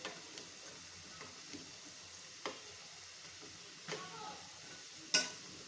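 Food frying in a pan with a steady sizzle, and a few sharp clicks of a utensil against the pan, the loudest near the end.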